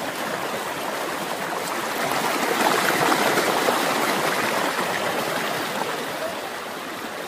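Fast, muddy floodwater rushing and churning: a steady rush of water, a little louder in the middle.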